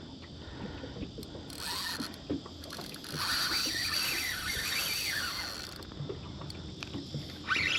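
Fishing reel working while a hooked mulloway is fought: the reel's gears and drag clicking as line is wound in and given.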